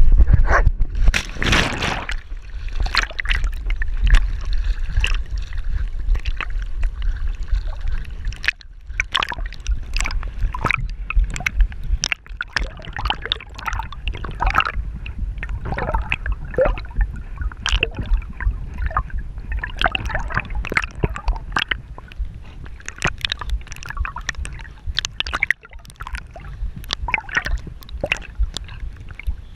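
Pond water sloshing, gurgling and splashing right at the microphone as dogs swim, in quick uneven bursts, busiest in the first couple of seconds.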